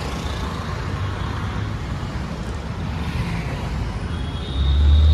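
Road traffic: a steady low rumble of passing vehicles, with a louder low engine drone coming in near the end.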